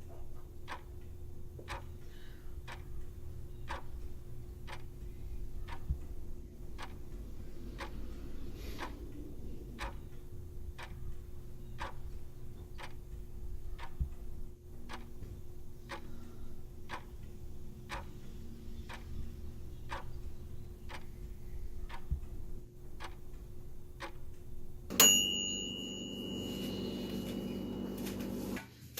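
Clock ticking steadily, a little faster than once a second, over a faint steady hum. About 25 seconds in, a sudden loud ringing starts and lasts a few seconds.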